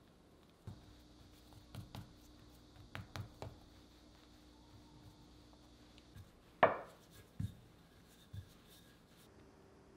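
Kitchen food-preparation sounds: a scattering of light taps and knocks of utensils and food on a work surface, with one sharper clack about two-thirds of the way in.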